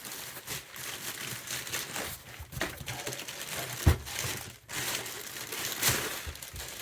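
Packaging crinkling and rustling as a portable power station is worked out of its box, with a sharp knock about four seconds in.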